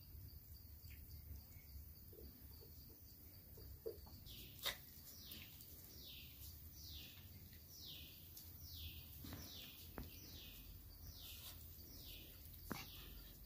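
A faint bird call repeating from about four seconds in: a short falling chirp about every three quarters of a second. A few sharp clicks sound, the loudest just under five seconds in.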